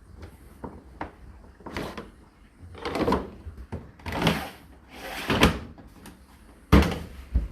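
Handling noises: three scraping swishes about a second apart, then two sharp knocks near the end, as of a door or panel being shut.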